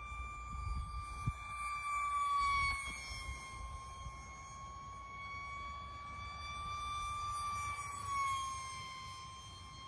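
Small 3D-printed radio-controlled F-22 model flying, its electric motor giving a steady high-pitched whine that swells and drops in pitch as the plane passes, once about two and a half seconds in and again near eight seconds. A brief thump comes about a second in.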